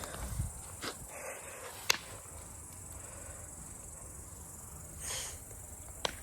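Crickets chirping steadily in a thin high band, with a few sharp pops and crackles from a wood fire of sawn boards burning in a metal barrel. The loudest pop comes about two seconds in, and there is a soft rushing swell about five seconds in.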